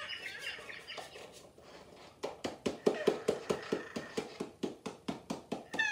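Electronic toy owl chirping from its built-in speaker: a warbling run of bird-like chirps, then from about two seconds in a fast, regular series of clicky chirps, about five a second.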